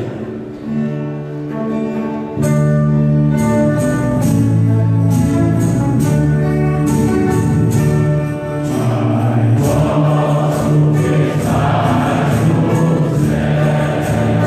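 Choir singing a religious hymn with instrumental accompaniment and a steady beat; it starts softer and comes in fully about two and a half seconds in.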